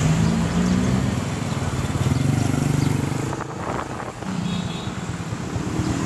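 Small motorbike engine running while riding through town traffic, its pitch shifting with speed. About halfway through, the engine eases off and then settles into a steadier tone.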